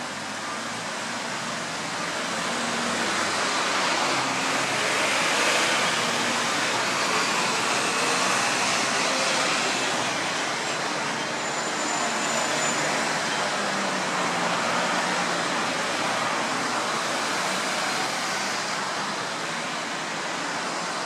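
Road traffic passing on a multi-lane street: a steady wash of tyre and engine noise from cars and vans, swelling as vehicles go by about five to nine seconds in.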